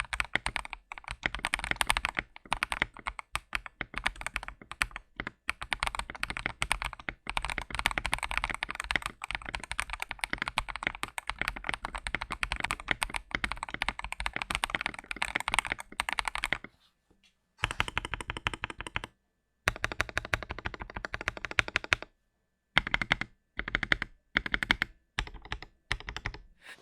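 Typing on an Akko 5075 mechanical keyboard with Akko Pom Pink switches and clear PCL keycaps: a fast, continuous run of key clicks, breaking after about sixteen seconds into shorter bursts of typing with brief silent pauses between them.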